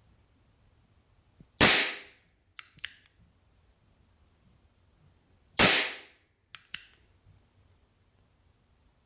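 North American Arms NAA-22LR mini revolver firing Aguila Colibri .22 LR primer-powered rounds: two sharp shots about four seconds apart. About a second after each shot come two quick metallic clicks as the single-action hammer is cocked and the cylinder turns for the next round.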